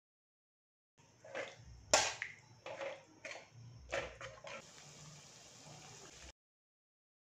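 A spatula stirring thin gravy in an aluminium kadai, knocking and scraping against the pan about half a dozen times, starting about a second in. Then a steady low hiss from the simmering sauce, which cuts off suddenly.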